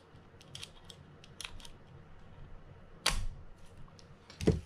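Small metal clicks from a Mitchell 302 spinning reel's bail-arm trip mechanism as it is pushed and turned by hand, then a sharp snap about three seconds in as the pin pops into its groove and locks, and a louder thump near the end.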